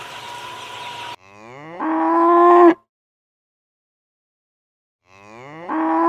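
A cow mooing twice. Each moo starts low, rises in pitch and gets louder over about a second and a half, then stops sharply; the second begins near the end. Before the first moo, about a second of noisy background with a steady high hum cuts off abruptly.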